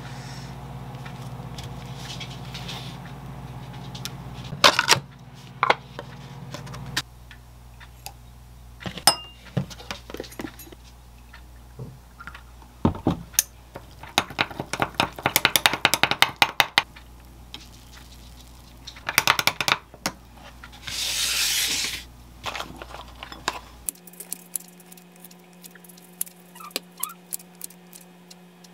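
Kitchen food-prep sounds: dishes and a ceramic bowl knocking and clinking on the counter. About halfway through, a quick run of clinks comes from a straw stirring a drink in a glass, and a little later a brief rushing noise. Near the end come the clicks of kitchen scissors snipping food.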